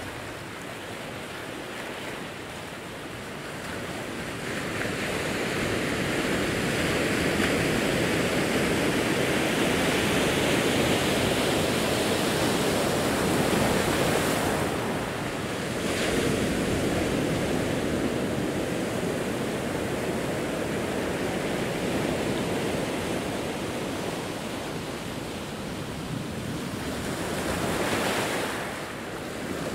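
Ocean waves breaking and washing over a rocky shore. The surf swells about four seconds in and stays full through the middle, then eases off, with another surge rising near the end.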